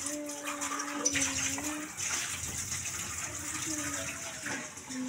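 Water running steadily from a tap, with a faint steady low tone alongside, part of changing a parrot's drinking water.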